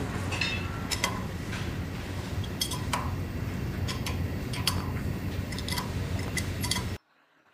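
Wire-stranding machine running with a steady low hum, with irregular sharp metallic clinks as an adjustable wrench is fitted to and worked on the steel die holder at the machine's head. The sound cuts off suddenly near the end.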